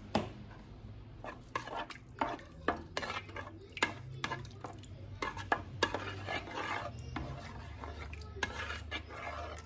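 A utensil stirring and scraping in the multicooker's cooking pot, with irregular clinks and taps against the pot.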